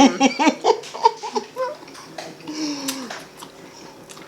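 A woman laughing in quick bursts for the first couple of seconds, then a short falling vocal sound and a quieter stretch with a few small clicks.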